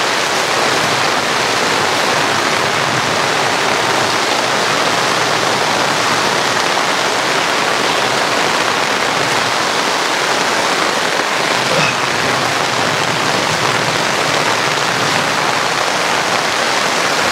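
Very heavy thunderstorm rain pouring down steadily onto the camper's awning and a pop-up canopy, a loud, even rush of water.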